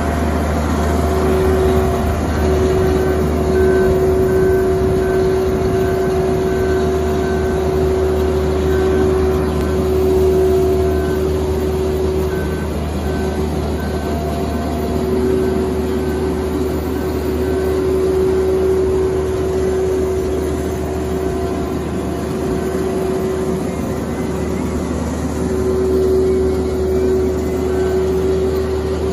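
Marine Travelift 75 BFMII boat hoist running as it drives with a yacht slung beneath it: a steady low engine drone with a steady whine over it. A faint high beep repeats evenly through much of it.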